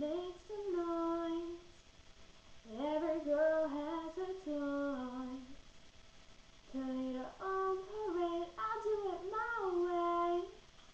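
A girl singing solo without accompaniment: three phrases of held, sliding notes with short breaks between them.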